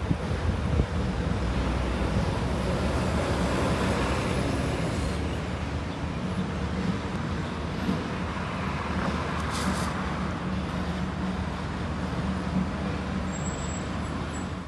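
Steady road traffic noise from passing cars and buses, a little louder a few seconds in.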